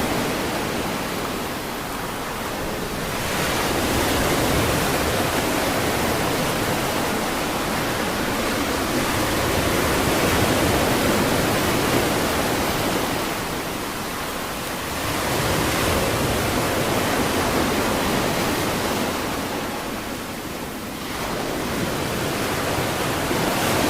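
Ocean surf washing on a beach: a continuous rushing hiss that swells and eases as the waves come in. It rises again about three seconds in, around fifteen seconds, and near the end.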